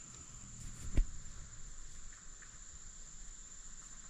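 Insects trilling in one steady, high continuous tone, with a single sharp knock about a second in.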